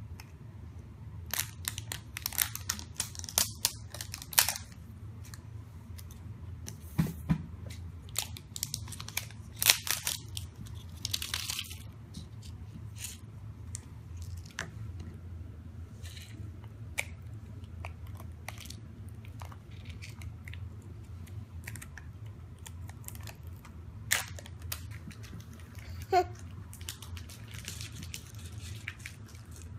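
Foil wrapper of a Choco Toy crinkling and tearing in quick sharp bursts as it is peeled off the plastic capsule, busiest in the first dozen seconds. After that come scattered small clicks and taps of the plastic capsule and spoon.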